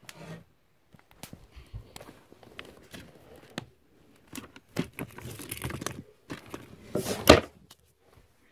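Handling noise from a phone rubbing and knocking against fabric: scattered rustles and small clicks, with a louder rustle about seven seconds in.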